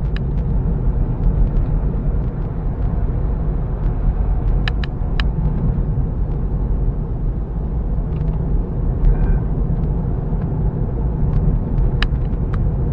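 Steady low road and tyre rumble inside a Tesla electric car's cabin while it cruises at about 35–40 mph, with a few faint sharp clicks about five seconds in and again near the end.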